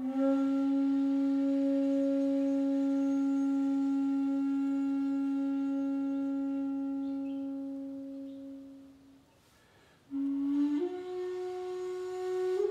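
Flute music: one long low note held for about nine seconds, fading away, then about a second of near silence, then a new note that steps up in pitch.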